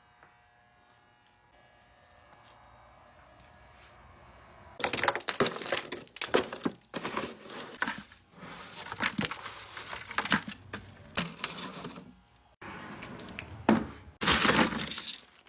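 A faint steady hum, then from about five seconds in loud, irregular crackling and rustling with sharp clicks and a few sudden breaks, like material being handled.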